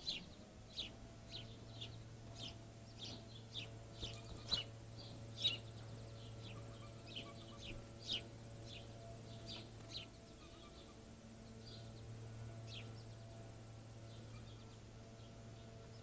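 Short, sharp chip notes from small songbirds, one or two a second for the first ten seconds, then only a few. A thin, steady, high insect buzz runs through the middle of it.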